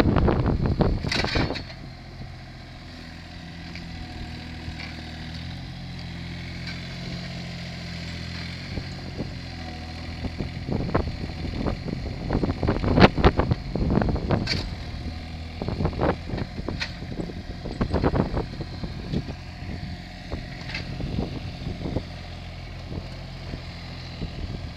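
Engine of a compact telescopic loader running steadily as it carries a heavy log on its forks. Loud clattering and knocks come in the first second or so, with scattered sharp clunks and rattles about halfway through.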